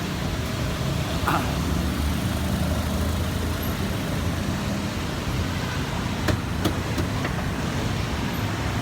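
Street traffic: a steady low engine rumble from passing motor vehicles, with a few sharp clicks.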